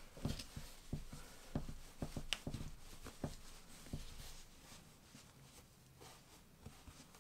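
Hands squeezing and pushing polyester stuffing into a crocheted bulky-yarn piece: soft irregular rustles and a few light knocks, thinning out after about four seconds.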